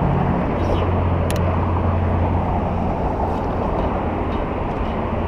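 Road traffic on a highway bridge overhead: a steady rumble, with a low hum that fades out about halfway through.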